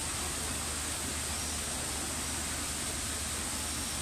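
Water of the Trevi Fountain rushing steadily over its rock cascades into the basin, a constant even hiss.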